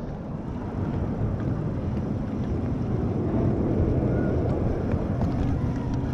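Strong wind buffeting the microphone: a steady low rumble that swells a little around the middle.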